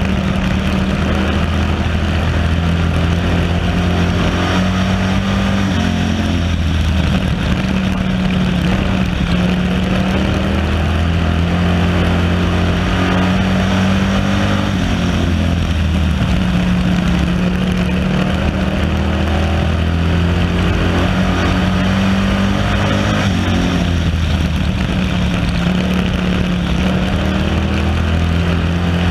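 Stock car engine running hard at racing speed, heard from a camera mounted on the car, with other race cars close by. The engine note eases off and picks up again a few times as the car goes through the turns.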